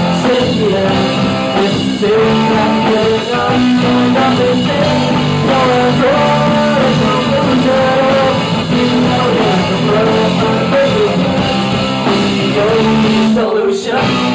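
A live rock band playing loud: electric guitar, electric bass and drum kit, with a man singing.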